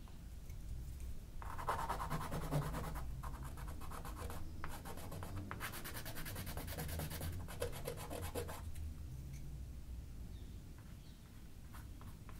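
Paintbrush stroking across textured watercolour paper: two spells of scratchy brushing, a short one about a second and a half in and a longer one from about four and a half to eight and a half seconds in.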